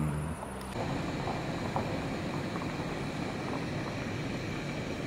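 Steady hiss of a hose-fed camping gas stove burner running under a stovetop moka pot, starting suddenly about a second in.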